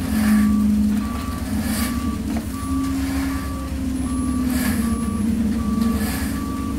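Concrete mixer truck's engine running at a steady low rumble while its backup alarm beeps evenly, a short high beep about every three quarters of a second.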